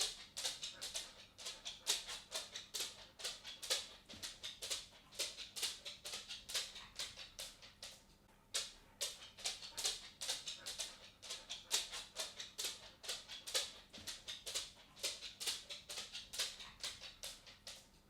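A dog's claws clicking on a wooden floor as it walks: an irregular patter of sharp ticks, several a second, with a brief pause about eight seconds in.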